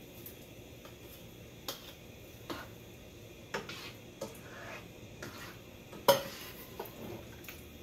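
Softened diced papaya tumbling from a bowl into a pan of sugar syrup and being stirred with a silicone slotted spoon, with scattered light knocks of the spoon against the bowl and pan; the loudest knock comes about six seconds in.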